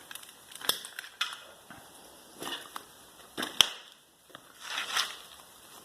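Irregular knocks, clicks and clatter of hard objects being handled and moved, with a sharp clack about three and a half seconds in and a longer scraping rustle near five seconds.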